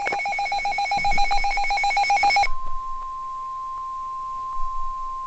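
Midland HH54 weather radio sounding its alert: a rapidly pulsing beep cuts off about two and a half seconds in, and a single steady tone takes over, the NOAA Weather Radio 1050 Hz warning alarm that signals an Emergency Alert System warning.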